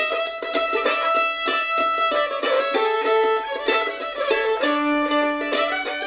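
Fiddle and mandolin playing an old-time fiddle tune together, the fiddle bowing held melody notes over the mandolin's quick run of picked notes.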